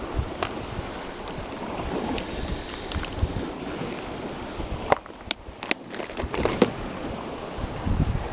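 Wind buffeting the microphone over the steady rush of sea surf on rocks. Between about five and seven seconds in come several sharp clicks and rattles from a clear plastic lure box being handled.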